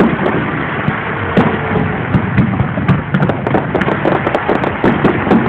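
Aerial firework shells bursting, with many sharp, irregular pops and crackles.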